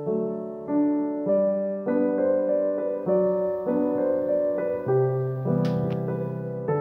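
Background piano music: a gentle melody played as a steady sequence of notes.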